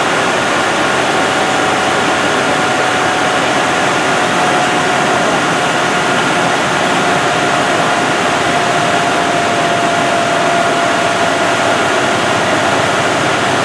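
A 200 hp induced-draft fan, belt-driven through a Flux Drive magnetic sheave coupling from its 1800 RPM motor, running at part speed during a slow ramp-up: a steady rush of air and machinery noise. A faint whine sags slightly in pitch through it.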